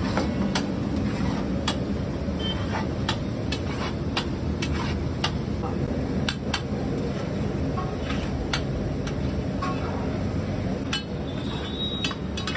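Metal spatulas clinking and scraping on large flat iron griddles (tawas) as pav bhaji is mashed and mixed: irregular sharp clinks, roughly one or two a second, over a steady low background rumble.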